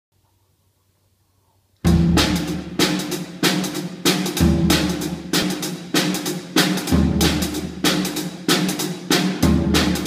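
Drum kit playing a steady groove that starts about two seconds in: sharp snare and cymbal strikes about three a second, with a heavy bass drum hit about every two and a half seconds.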